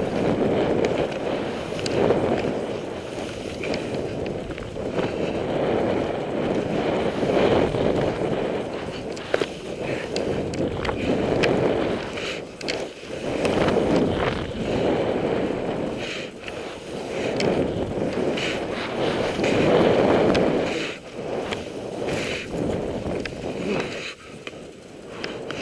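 Skis running through deep powder snow, a rushing hiss that swells and fades every couple of seconds with the turns, mixed with wind rushing over the microphone.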